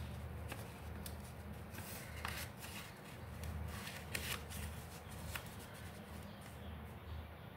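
Faint rustling and light ticks of folded green paper being handled and pressed together by hand, with a few short sharper rustles scattered through.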